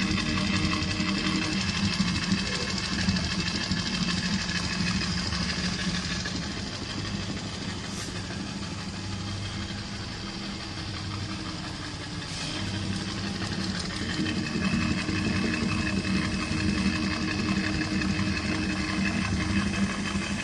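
GOA-8-BZ long-arm industrial sewing machine running and stitching through quilted padding, a steady motor and needle-mechanism hum. It runs more quietly for a few seconds in the middle, then picks up again about twelve seconds in.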